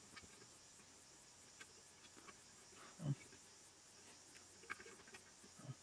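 Near silence with faint ticks and taps of hands and a marker pen working over the coils of a washing machine stator, and one brief, louder low sound about three seconds in.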